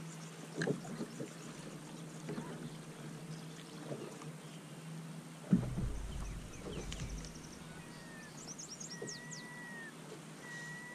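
Low steady hum of a bow-mounted electric trolling motor under scattered knocks on the boat deck, with one louder thump about five and a half seconds in. Birds chirp and give short whistles in the second half.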